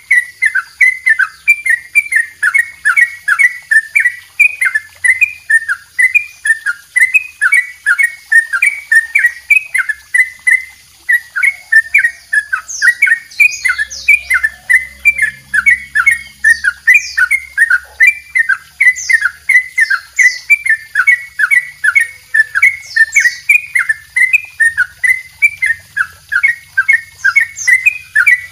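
Caged yellow-vented bulbul (trucukan) singing a long, unbroken run of quick repeated chattering notes, about three to four a second: the long double trill that bird keepers use as a master song to tutor other songbirds. A few brief higher notes come in now and then.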